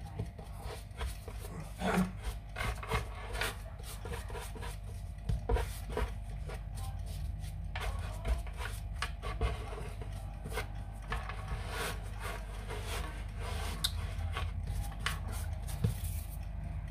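Hands shaping a loaf of yeast bread dough on a floured wooden board: many short, irregular scuffs, rubs and soft taps as the dough is patted, rolled and pushed across the wood.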